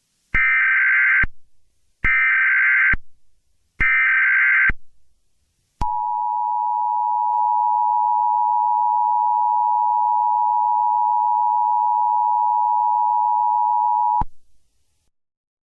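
Emergency Alert System tones: three short SAME header data bursts about a second each, then the steady two-tone EAS attention signal held for about eight seconds before cutting off suddenly.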